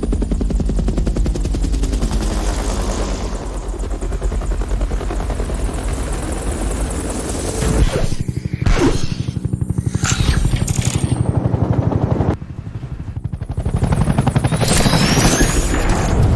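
Helicopter sound effects: rotor blades chopping in a rapid, steady pulse. The sound changes abruptly about eight seconds in and again about twelve seconds in, dropping in level briefly before building back up.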